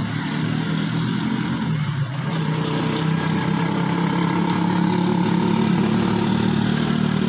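Motorcycle rickshaw's small engine running steadily as it passes along the wet road, growing a little louder after about two seconds.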